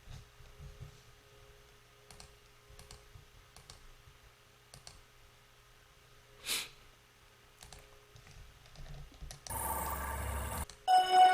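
Faint computer mouse clicks and key taps, scattered and quiet, with one short rush of noise about six and a half seconds in. Near the end, samples are previewed: about a second of loud noisy sound, then a pitched music sample starts with sustained notes.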